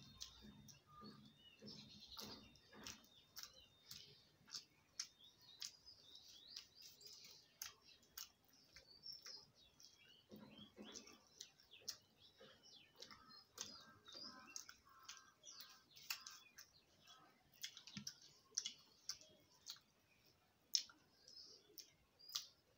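Quiet eating by hand: many short sharp clicks of chewing and fingers working rice on a steel plate, with small birds chirping faintly in the background.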